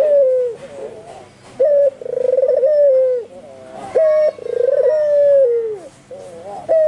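Albino white ringneck dove (puter) cooing over and over: each call is a short sharp note followed by a long rolling coo that falls away at the end, repeating about every two and a half seconds.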